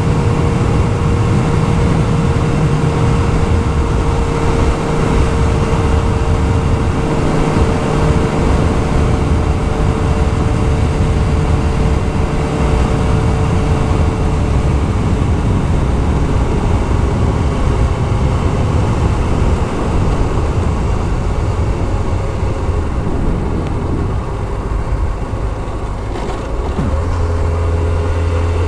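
Yamaha YZF-R6S sport bike's inline-four engine running steadily under way uphill, mixed with a steady rush of wind and road noise. Near the end the sound dips briefly, then settles into a steadier low hum.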